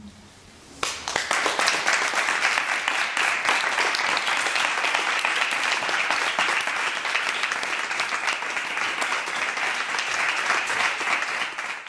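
Audience applauding, a dense steady clatter of many hands clapping that breaks out suddenly about a second in.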